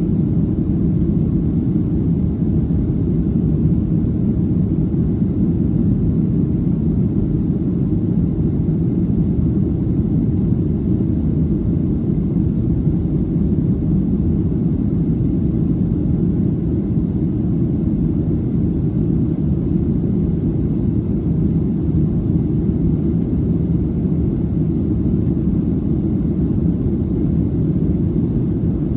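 Steady cabin drone of a Boeing 737-700 in flight: its CFM56-7B engines and the airflow over the fuselage, heard from inside the cabin as an even low rumble.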